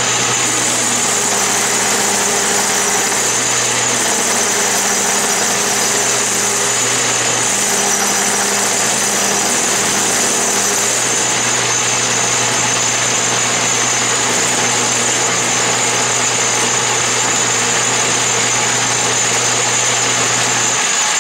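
Atlas lathe running while a hand-fed parting tool cuts off half-inch round steel, loud and rattly with a lot of vibration from the cut. A steady high-pitched whine sits over the machine noise.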